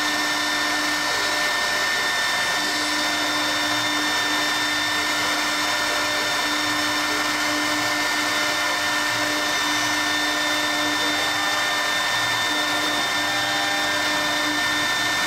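Spindle of a CNC rotary milling machine for round columns running steadily, a steady high whine over an even rushing noise, while a program runs at a slow work speed as a first check.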